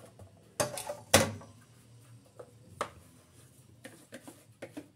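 A wire whisk and a mixing bowl knocking together: two loud knocks about half a second apart near a second in, then a few faint clicks and taps as the bowl of cake batter is handled.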